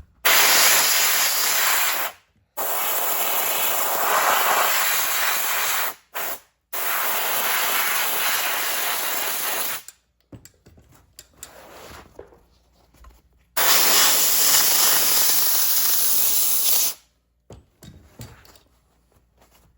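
Aerosol can of spray adhesive spraying in four long hissing bursts, each about two to three and a half seconds, with a longer pause before the last one.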